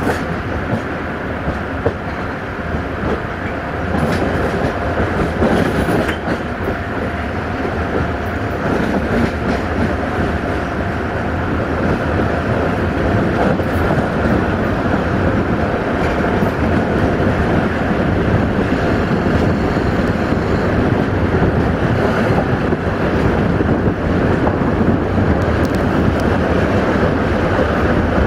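Locomotive-hauled passenger train running along the track at speed, heard from a carriage window: a steady rumble of wheels on rails that grows a little louder after about four seconds.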